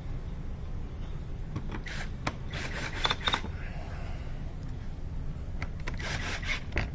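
Hand tools and bolts being handled while the splash guard bolts go back in: scattered short clicks and brief scraping sounds in a few clusters, over a steady low hum.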